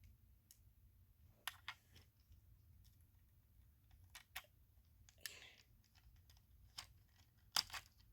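Faint, scattered clicks and taps of small parts of a diecast toy car kit being handled and fitted together, with a brief rustle about five seconds in.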